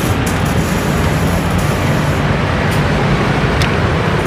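Steady noise of passing street traffic, with a couple of faint clinks from a metal ladle against a ceramic bowl as soup is served.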